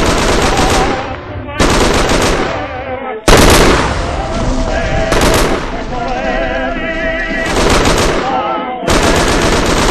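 Dense machine-gun fire laid over the film as a sound effect, coming in a string of loud bursts that each cut in abruptly, with a wavering tone underneath in the middle.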